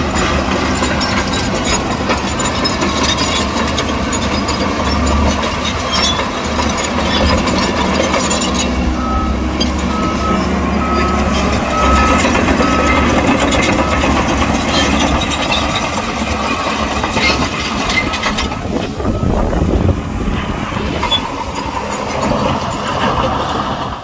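Heavy diesel earthmoving machinery running steadily: dump truck and bulldozer engines. A reversing alarm beeps about half a dozen times, evenly spaced, starting around nine seconds in.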